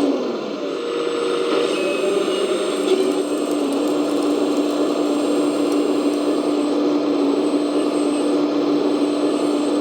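Steady whine and hum of a 1/14 RC demolition excavator's hydraulic system, its brushless-motor oil pump and imitation diesel engine sound running together as the plier attachment works on wood. The tone dips and shifts briefly in the first second or two, then holds steady, with a short knock about three seconds in.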